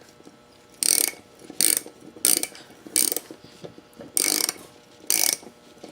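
Hand ratchet wrench clicking in short repeated strokes, about one a second, as the wheel nuts are tightened back onto an ATV wheel.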